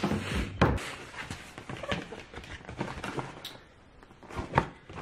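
Scattered clicks, knocks and rustles of handling a cardboard takeaway food box on a table, with a sharp click about half a second in and another near the end.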